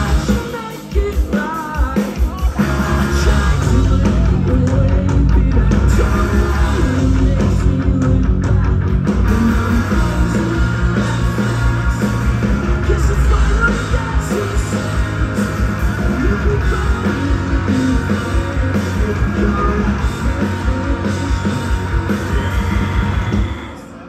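Live rock band playing, with distorted electric guitars, bass, drums and singing, heard from within the crowd. The music drops away sharply near the end.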